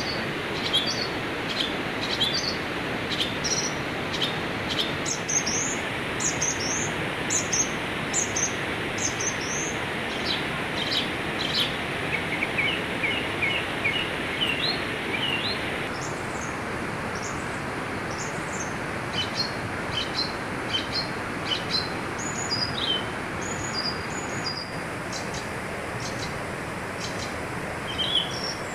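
Many small birds chirping in short, high notes over the steady rush of a rocky river, with a quick run of rising notes about halfway through.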